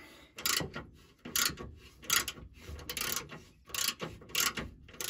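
Ratchet socket wrench clicking in short rattling bursts, a burst about every three-quarters of a second, as it is swung back and forth on a bolt under the truck frame.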